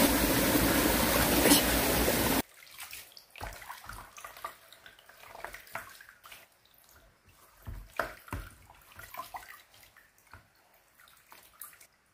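Mountain stream rushing steadily, cutting off suddenly about two seconds in; then quiet, scattered clicks, rustles and drips of wet greens and roots handled in a stainless steel colander over a plastic basin.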